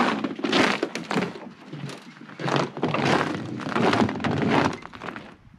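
Repeated crunching and cracking of thin ice, a sharp crunch about every half second, dying away near the end.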